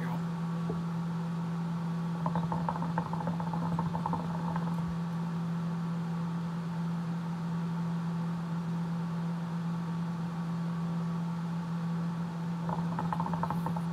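Hookah water bubbling as smoke is drawn through the hose: a run of gurgling pops about two to five seconds in, and again near the end, over a steady low hum.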